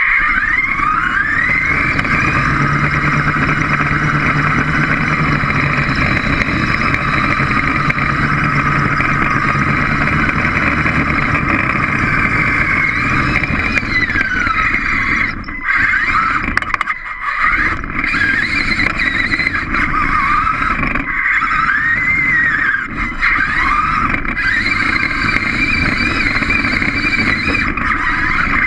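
Small robot's electric drive motors and gears whining, the pitch sliding up and down as it speeds up, slows and turns, over a steady low rumble. The sound drops out briefly a couple of times around the middle.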